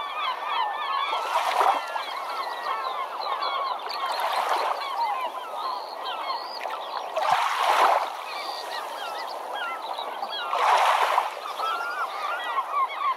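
A large flock of birds calling continuously in many overlapping short calls, with a rush of noise swelling and fading about every three seconds.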